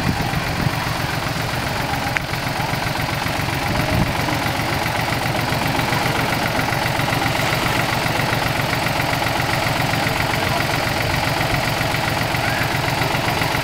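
Farm tractor's diesel engine running steadily at low revs, its firing pulses even and unbroken.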